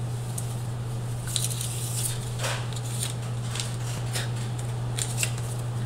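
A small slip of paper crinkling as it is pulled from a fabric Christmas stocking and unfolded: a dozen or so short, crisp crackles starting about a second and a half in, over a steady low hum.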